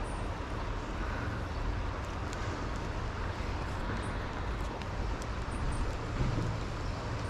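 Steady rush of a shallow river riffle, with wind buffeting the microphone.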